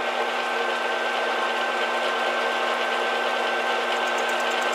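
Metal lathe running at a steady speed with its chuck spinning, its motor and drive giving a steady whine made of several unchanging tones.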